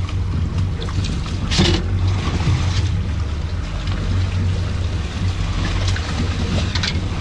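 Small fishing boat's engine running steadily with a low hum, over water and wind noise, with one sharp knock or splash about one and a half seconds in.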